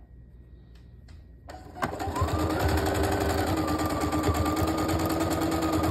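Brother domestic sewing machine starting up about one and a half seconds in and sewing a straight stitch through fabric. It runs steadily, with a motor whine that rises as it gets going and then holds, over the rapid beat of the needle.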